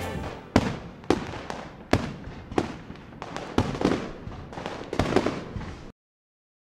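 Fireworks going off: about six sharp bangs at uneven intervals, each trailing off in crackle and rumble. The sound cuts off abruptly near the end.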